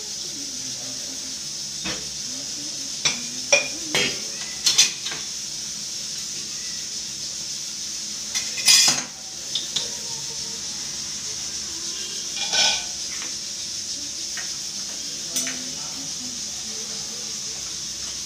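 Steel kitchen dishes and utensils clattering now and then: a few clanks between about 3 and 5 seconds in, the loudest near 9 seconds, and more near 13 and 15 seconds, over a steady hiss.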